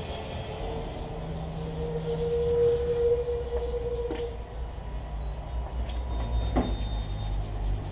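Wet-and-dry sandpaper rubbed back and forth by hand over the primed steel roof panel of a Datsun 1200 wagon: a scratchy rasping, worked first with a sanding block and then with a small strip of paper along the edge of the roof. A steady hum joins for a few seconds around the middle.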